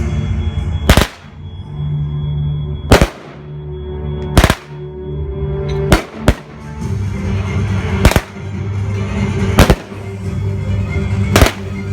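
Fireworks going off: about eight sharp bangs, one to two seconds apart and two of them close together near the middle, over background music with low sustained notes.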